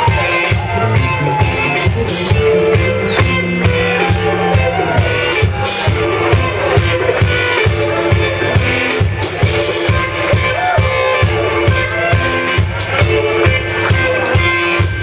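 Live rock band playing: electric guitars over a drum kit with a steady beat, amplified and loud.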